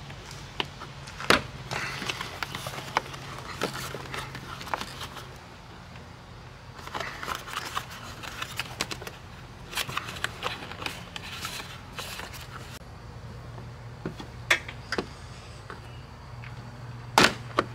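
Plastic fog-light bezel trim on a 2022 Toyota Corolla hatchback's front bumper being pried loose by hand: scattered clicks and scratchy plastic rubbing as the push tabs give, with a few sharper clicks, one about a second in and one near the end. A low steady hum runs underneath.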